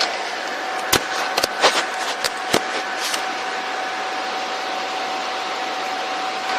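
Several small sharp clicks and taps, about six between one and three seconds in, from handling a SIM tray and card, over a steady fan-like hum with a faint constant tone.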